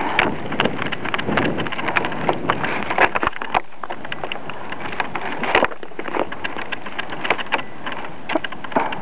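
Ice crackling and ticking: many irregular sharp clicks over a steady hiss.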